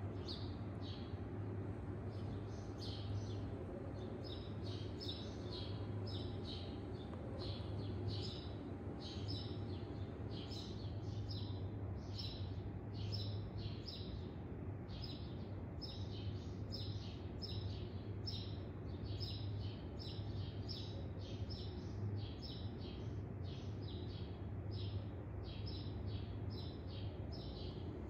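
A bird chirping over and over in an even rhythm, about two short high chirps a second, over a steady low hum.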